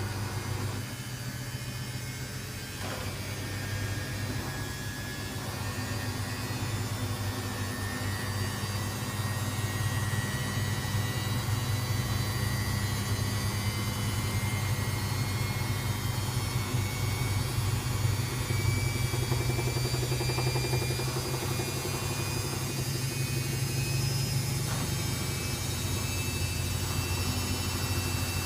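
Samsung WF6700 washing machine running on its AC brush motor: a steady low hum with a faint whine that slowly rises in pitch, the sound growing louder over the first ten seconds or so and then holding steady as the drum turns faster.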